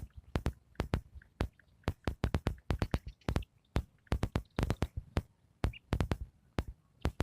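Sparse electronic drum beat: sharp clicks and knocks in an uneven, syncopated rhythm, with no melody.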